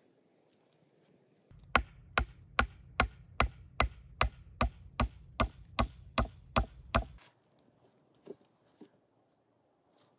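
A tool striking wood in a quick, even series of about fourteen sharp blows, roughly two and a half a second, then two fainter knocks.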